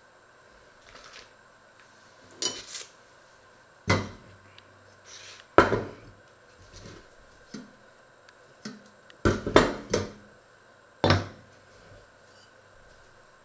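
Stainless steel pot and its glass lid knocking and clinking as they are handled and set down on a wooden worktop: a handful of separate sharp knocks, with a quick cluster about nine to ten seconds in.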